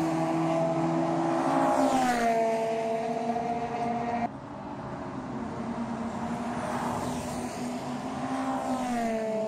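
Cars running flat out down a race circuit's main straight, engines at high revs. Two of them pass by with the engine note dropping in pitch, about two seconds in and again near the end. The sound drops suddenly about four seconds in.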